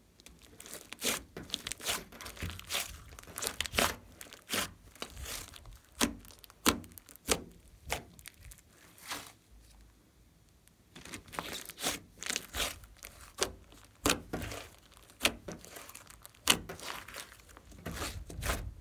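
Thick clay slime being stretched, folded and squeezed by hand, giving quick irregular sticky crackles, pops and tearing sounds. There is a quieter pause of a couple of seconds near the middle while it is pulled out slowly.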